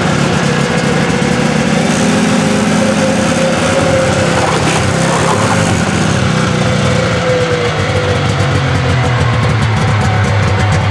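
Snowmobile engine running steadily just after a cold start.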